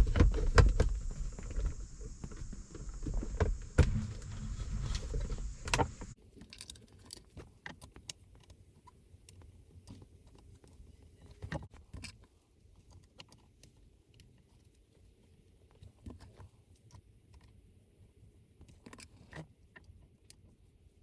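Clicks, taps and rustling from a replacement center console lid and its Torx screws being handled and fitted in place. The handling is louder for about the first six seconds, then drops suddenly to faint, scattered clicks.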